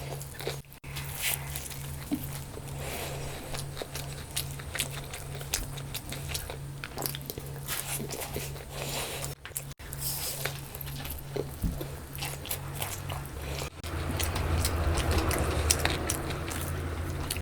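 A person chewing and biting food close to the microphone, with many small mouth clicks. A steady low hum runs underneath, and the chewing grows louder about fourteen seconds in.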